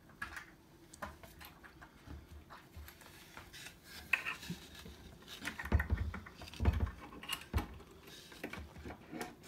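Clicks and knocks of red bar clamps being loosened and a taped wooden board being handled against a kitchen cabinet, with a few heavier knocks past the middle.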